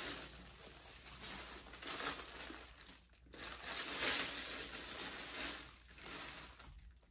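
Plastic shipping mailer bag crinkling as hands rummage through it and the plastic-wrapped clothes inside, in uneven rustles with short pauses about three seconds in and near the end.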